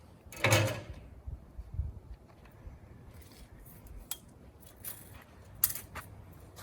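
A steel tape measure being handled to measure a sawn oak cant: a short rasp about half a second in, then a few faint metallic clicks and clinks.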